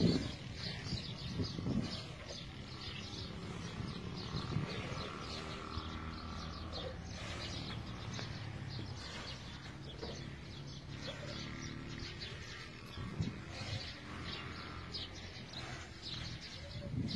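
Small birds chirping again and again in short, sharp notes over a low steady hum.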